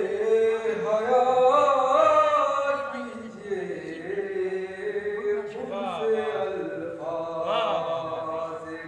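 A man's voice chanting verse in a melodic, held-note style through a microphone, with pitch gliding between long sustained syllables.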